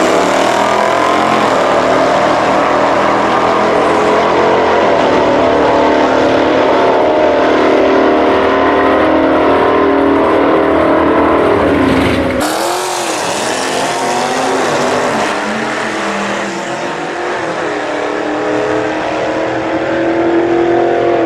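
Two V8 muscle cars launching off the drag strip start line and accelerating hard at full throttle, engine pitch climbing and dropping back at each gear shift. About twelve seconds in the sound cuts to two other muscle cars at the start line, engines idling and blipped in short revs that climb again near the end.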